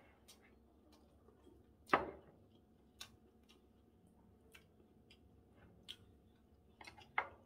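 Chopsticks clicking against a ceramic bowl: a few sharp separate clicks, the loudest about two seconds in with a short ring, and a quick cluster near the end.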